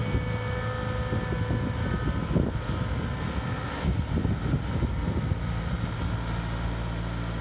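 Compact tractor engine running steadily at a low idle while the tractor reverses slowly, with a few irregular knocks and rattles a couple of seconds in and again about four seconds in.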